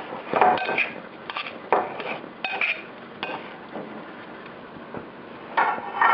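Serving utensils clinking and scraping against a bowl as a dressed salad is tossed, in a series of short, irregular clinks with a brief pause past the middle.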